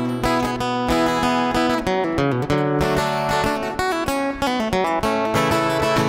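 Steel-string acoustic guitar strummed in a steady rhythm, chords ringing without a voice: the instrumental break between verses of a country song.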